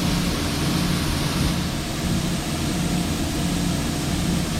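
Heavy diesel farm machinery running steadily, with a slow, regular throb in its low hum and a broad hiss of wind and machinery over it.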